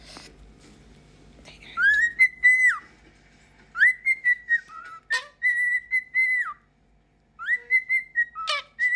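Pet bird whistling in three runs of clear, held notes at one steady pitch. Each run slides up into the note and drops away at the end, with a sharp click in the middle run.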